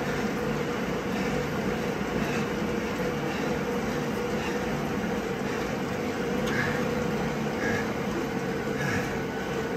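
Steady machine hum with a constant tone, like a fan or indoor trainer in a small room. In the second half a man breathes hard in soft puffs about a second apart, winded after a maximal cycling interval.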